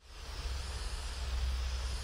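Steady low rumble of wind buffeting the microphone, with an even hiss over it.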